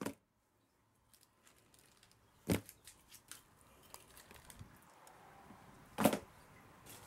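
A few sharp knocks and clicks over faint background noise, the loudest at the very start, about two and a half seconds in and about six seconds in, with lighter ticks between.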